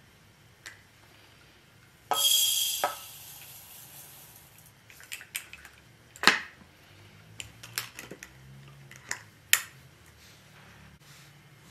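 Uncooked rice poured from a glass jar into a ceramic bowl: a short rush of grains hitting the bowl about two seconds in that tails off over the next second or two. It is followed by a series of sharp clicks and clinks as the glass jar with its metal clamp lid is handled, the loudest about six seconds in.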